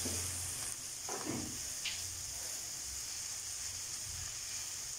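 Shredded cabbage, carrots and green bell pepper sizzling steadily as they stir-fry in oil in a nonstick pan, with a spoon stirring through them.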